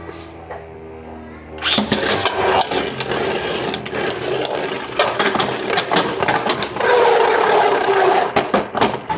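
3D-printed Beyblade Burst tops spinning and clashing in a plastic stadium, starting suddenly about two seconds in, with rapid sharp hits and scraping throughout.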